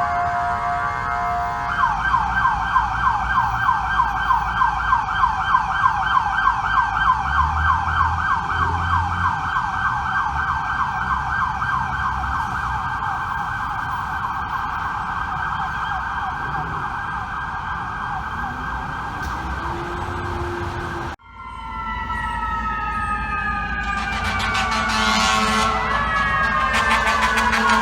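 FDNY fire apparatus siren: a steady tone for the first two seconds, then a fast yelp of rapidly repeated rising sweeps. About twenty-one seconds in it cuts off abruptly, and a siren is heard sliding slowly down in pitch, several tones together.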